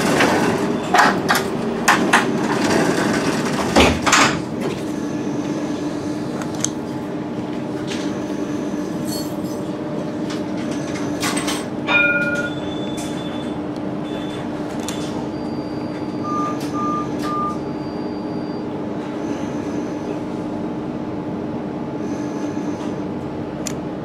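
Alstom Citadis 302 tram giving off a steady electrical hum, with a few clicks and knocks in the first few seconds. A short chime sounds about halfway through, and three quick beeps follow a few seconds later.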